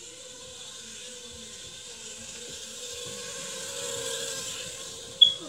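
Small electric motor of a remote-control toy running steadily with a whine, growing louder to about four seconds in and then easing off. A sharp short click comes near the end.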